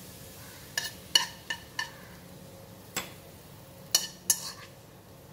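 A metal spoon clinking and scraping against a granite-coated wok as fried garlic is scooped out of the hot oil and tapped off into a small glass bowl. About eight sharp clinks with a short ring, the loudest about a second in and around four seconds in.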